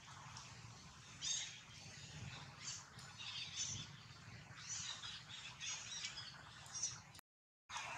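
Faint outdoor ambience with scattered short, high bird chirps over a low steady rumble, cutting out briefly near the end.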